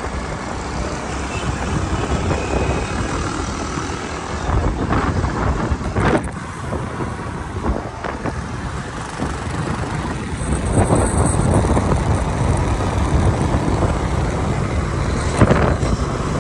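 Riding on the back of a motorcycle in city traffic: the bike's engine running under a steady wash of road and traffic noise, with a large bus passing close alongside near the end.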